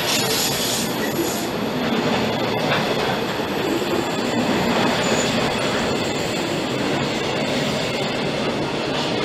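Intermodal container train's wagons rolling past on the adjacent track, a steady loud noise of wheels running on the rails.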